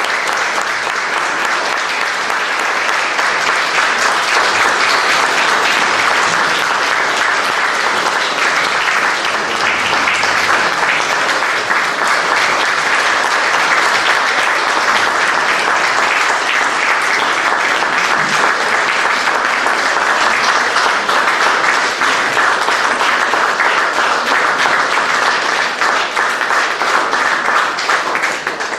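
Audience applauding: a long, steady round of dense clapping with no let-up.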